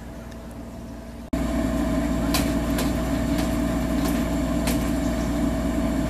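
Steady machine hum from a sewer camera inspection truck's running equipment. It jumps much louder about a second in and carries a few light clicks.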